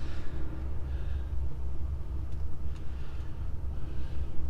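Truck's diesel engine running with a steady low rumble, heard from inside the cab as it pulls away, with soft hissing swells now and then.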